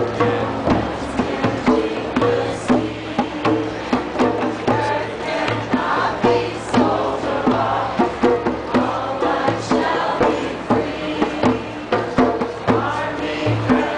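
A group of voices singing a chant together over a steady, evenly struck drumbeat.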